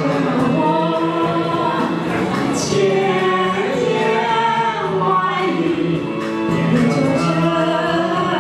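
A woman and a man singing a duet into handheld microphones over a karaoke backing track.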